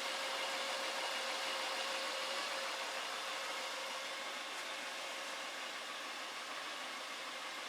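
Honda Odyssey's 3.5-litre V6 idling steadily, heard as an even, hissy running noise with a faint steady hum.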